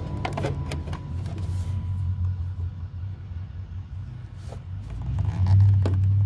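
A low, steady engine drone that grows louder about five and a half seconds in, with a few sharp clicks in the first second or so as the plastic wire loom around the wiring is cut open.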